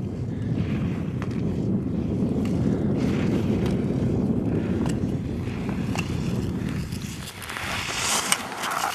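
Wind buffeting the microphone as a steady low rumble, with scattered clicks. Near the end a rising hiss of ski edges carving on hard snow as the racer passes close.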